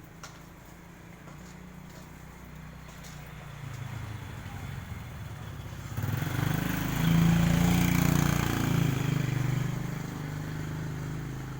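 Engine hum of a passing motor vehicle, growing louder from about four seconds in, loudest past the middle, then fading away.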